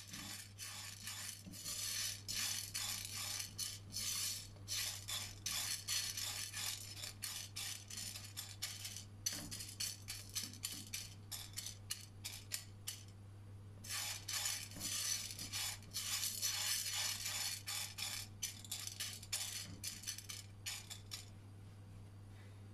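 Popcorn kernels rattling and clicking against a stone-coated pot as they are stirred with a silicone spatula, the stirring pausing briefly about halfway and stopping shortly before the end.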